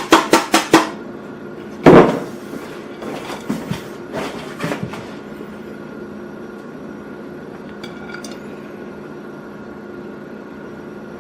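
Kitchen handling sounds while topping a pizza: a quick run of light taps at the start, one loud knock about two seconds in, then a few softer clinks and knocks. A steady low hum runs underneath and is all that is left for the second half.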